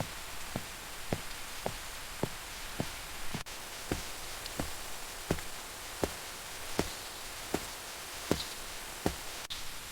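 Knife chopping on a cutting board in steady, even strokes, a little under two a second and slowing slightly, over a steady hiss.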